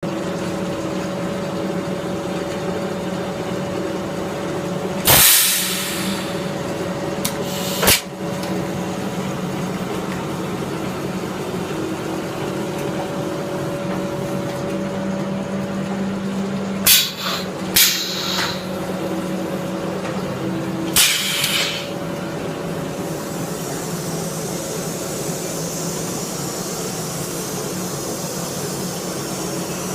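Bottle blow-moulding machine running with a steady hum, broken by short loud hisses of compressed air with knocks of the mechanism: one about five seconds in, a sharp knock near eight seconds, two close together around seventeen to eighteen seconds and another near twenty-one seconds.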